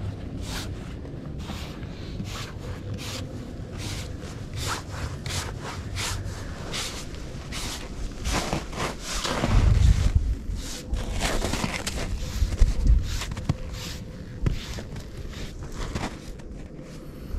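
Stiff hand brush sweeping sawdust off a freshly chainsaw-milled poplar slab, in quick repeated scraping strokes.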